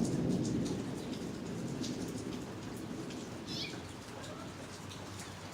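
Rain falling steadily during a thunderstorm, with the low rumble of thunder dying away over the first second or so. A bird chirps briefly about three and a half seconds in.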